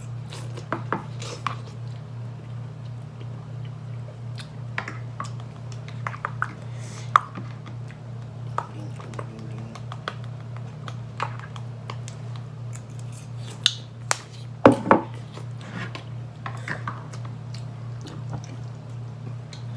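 Eating noises at a table: noodles slurped and chewed, utensils clicking against plastic bowls, and a hot sauce bottle being shaken and squeezed, over a steady low hum. A couple of louder knocks come about fifteen seconds in.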